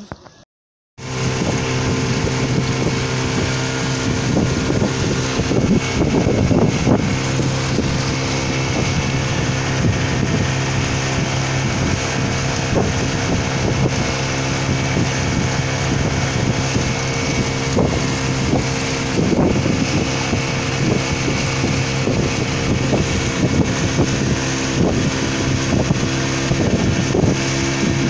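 Motorboat engine running steadily at speed, starting about a second in, with wind buffeting the microphone and scattered knocks.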